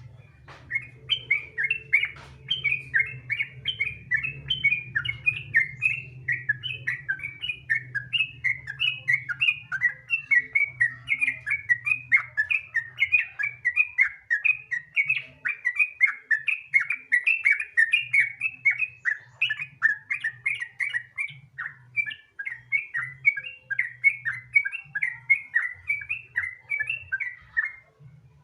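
Sooty-headed bulbul (trucukan) singing a long unbroken run of quick chattering notes, several a second: the rolling 'ropel' song of a bird in full voice ('gacor').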